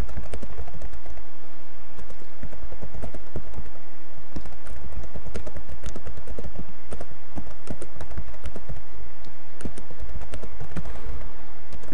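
Typing on a computer keyboard: a run of irregular key clicks over a steady low rumble.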